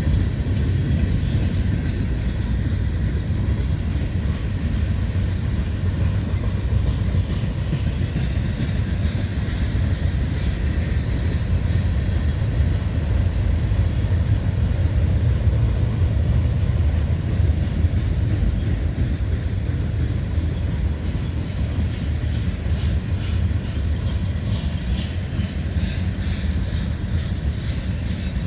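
Freight train cars rolling past at steady speed: a continuous low rumble of wheels on rail.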